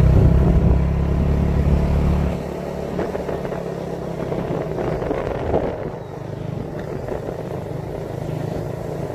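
Small motorcycle running steadily while riding along, with a heavy low rumble that drops off about two seconds in.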